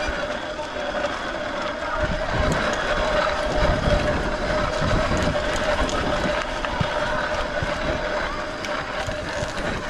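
Fat-tyre bicycle rolling over a bumpy grassy dirt path, with a steady whine and gusts of wind buffeting the microphone from about two seconds in.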